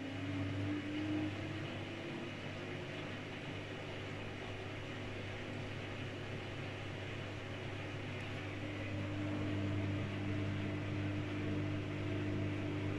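Whirlpool FSCR90425 front-loading washing machine in its 600 rpm spin cycle with an unbalanced load: a steady low hum and a motor whine that rises slightly in pitch in the first couple of seconds, then holds steady.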